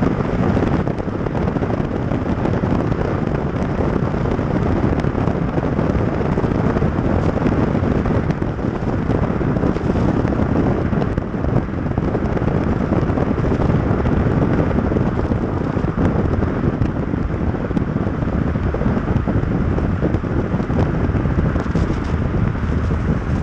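Wind buffeting the microphone of a camera mounted outside a moving car, mixed with steady tyre noise on a wet road.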